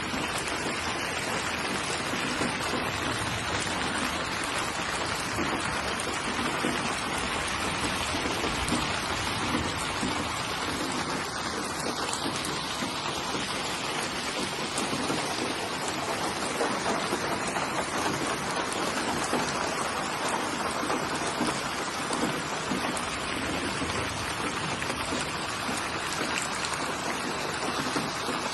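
Steady rain falling, a continuous even patter of raindrops on a surface.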